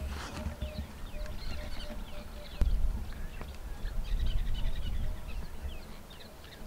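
Wild birds calling with many short chirps and a repeated low note, over low thuds of zebra hooves on dry ground, with one sharp knock about two and a half seconds in.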